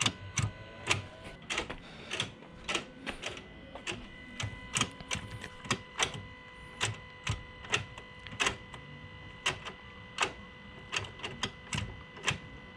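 Manual gear shift of a Ford Focus ST with new Delrin shifter cable bushings being worked through the gears: a run of irregular sharp clicks and clunks, one to three a second, over a faint steady whine.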